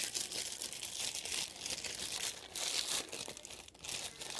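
Slime being squished and worked by hand, an irregular run of sticky crackling and crinkling sounds.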